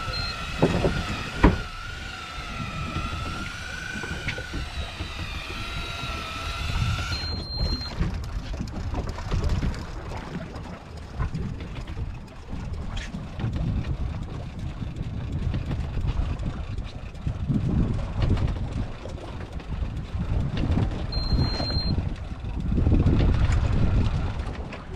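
Electric fishing reel's motor whining as it winds a fish up from deep water, its pitch wavering slightly under load, stopping abruptly about seven seconds in. After that, wind and water noise around the boat, rising near the end.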